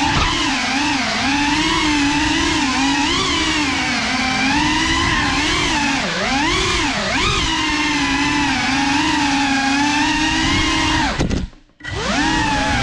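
GEPRC CineLog35 cinewhoop drone's brushless motors and ducted propellers whining, the pitch rising and falling with the throttle. Near the end the sound cuts out for about half a second, then the whine returns.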